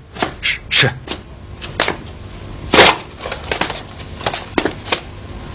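A series of short, sharp clicks and knocks at uneven intervals, about a dozen of them, over a light steady hiss.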